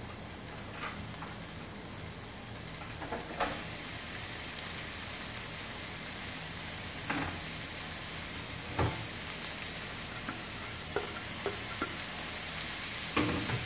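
Oil sizzling steadily in a metal kadai as onions and bean sprouts fry, with a few short knocks of a spatula and utensils against the pan.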